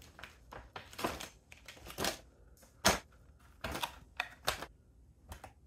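Beauty products being handled: a string of light clicks, taps and rustles as a bottle and a small boxed set are put down and picked up. The sharpest click comes about three seconds in.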